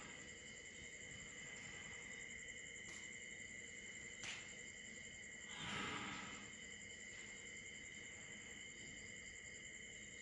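Night insects trilling steadily on several high pitches, fairly faint. About six seconds in comes a short, louder breathy rush, and just after four seconds a faint click.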